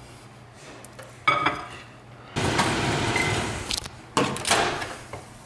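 A microwave door being opened and a glass dish taken out: a click about a second in, then handling noise and clinks of glass as the dish is slid out and set down.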